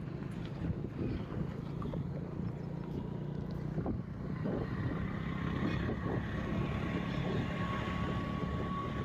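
Vehicle driving along a highway: steady engine and road rumble with wind on the microphone, and a faint steady whine that grows stronger near the end.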